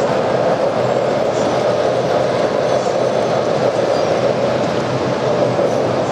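O-gauge model trains running on the layout's track: a steady, continuous noise of wheels and motors with no pauses.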